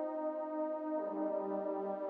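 Background music: slow ambient instrumental with sustained horn-like tones, the chord shifting lower about a second in.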